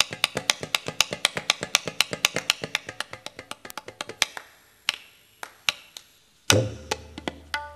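Fast run of sharp, dry tabla and drum strokes that thins a little past halfway to a few scattered hits. A loud accented hit about six and a half seconds in lands with a low sustained bass tone under it.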